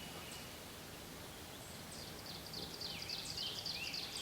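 A wood-warbler singing a quick run of repeated high phrases that starts about a second and a half in and grows louder toward the end.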